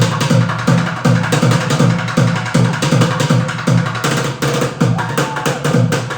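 Music with a steady drum beat, low kick hits about twice a second under sharp percussive clicks.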